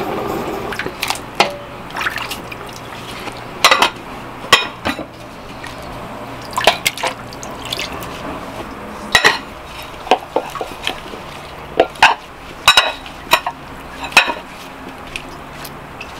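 Kitchen clatter: irregular clinks and knocks of pots, dishes and utensils over the sound of liquid being poured or splashed.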